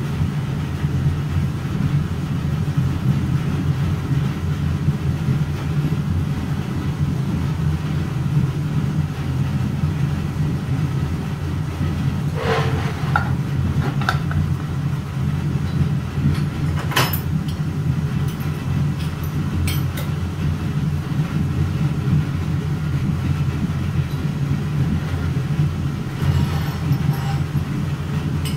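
Steady low machine hum running evenly, with a few short sharp clicks about twelve to twenty seconds in, the loudest about seventeen seconds in, and a brief patter of clicks near the end.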